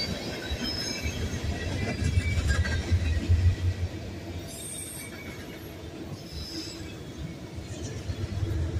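Freight train passing at close range: boxcars and autorack cars rolling and rattling over the rails with a steady low rumble that swells twice. A few faint high squeals come from the wheels in the first three seconds.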